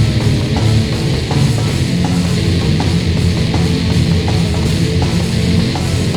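Loud, heavy punk/grunge rock played on distorted electric guitars and a drum kit, with a steady drum beat under a dense wall of guitar.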